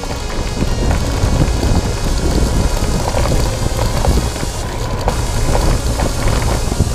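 Mountain bike rolling over a gravel dirt track, heard through a handlebar-mounted camera: a steady rumble with dense crackling and rattling from tyres on loose stones and the shaken bike and mount, with wind on the microphone.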